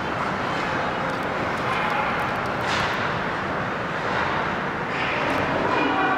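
Ice rink game ambience: a steady wash of skates scraping on the ice and distant voices, with a sharp clack of stick or puck a little under halfway through.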